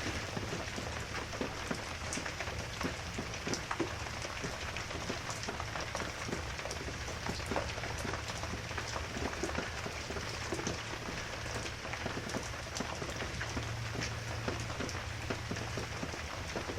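Steady rain falling, with many small drops pattering close by.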